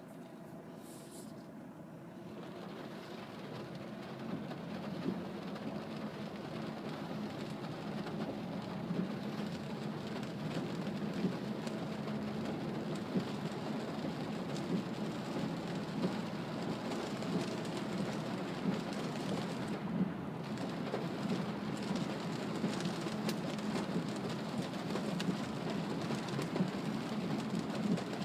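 Cabin noise inside a Mazda CX-3 diesel driving on a wet expressway in heavy rain: a steady rush of tyres on the wet road and rain on the body, with a low drone. It grows louder over the first several seconds, then holds steady with small scattered taps.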